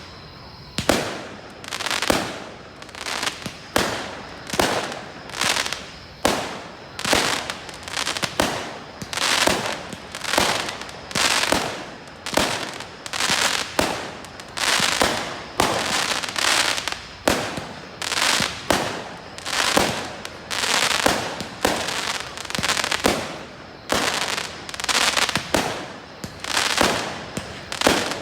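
Fireworks display: a continuous barrage of aerial shell bursts, a little more than one bang a second, each bang trailing off over about half a second.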